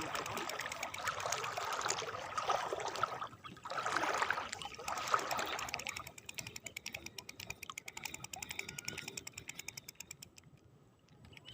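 Fishing reel being cranked to retrieve a lure: a rapid, fine mechanical clicking that fades out about ten seconds in.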